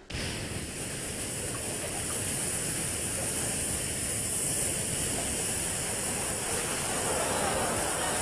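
A steady rushing noise that starts suddenly and holds even throughout.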